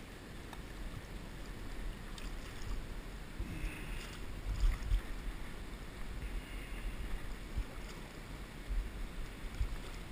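River water sloshing and lapping close to the microphone as it moves through a shallow stream, with irregular low thumps on the microphone, loudest about halfway through.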